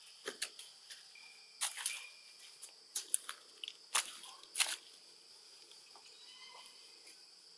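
Sharp short clicks and crackles at irregular intervals, about eight in the first five seconds, over a steady high-pitched hum.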